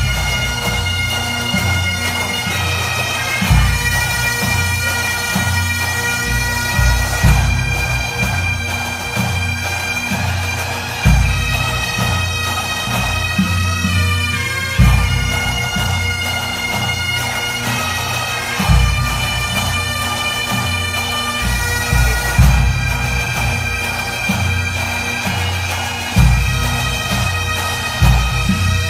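Bagpipes playing a slow tune of long held notes over a steady drone.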